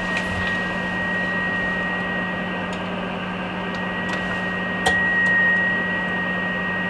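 Receiver hiss from the Icom IC-201 transceiver's speaker in SSB mode at full RF gain, with a thin steady whistle just under 2 kHz: the beat note of a 0.1 microvolt test carrier, just audible above the noise. A click comes about five seconds in.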